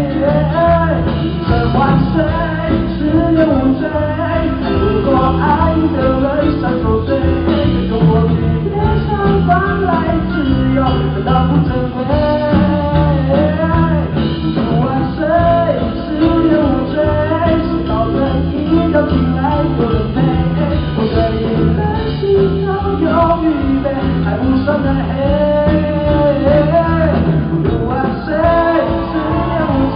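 Live band playing a pop-rock song, with a voice singing a melody over guitar.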